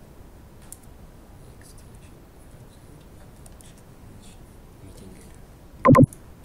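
Faint scattered clicks of a computer keyboard being typed on in a small room, then one brief loud burst near the end.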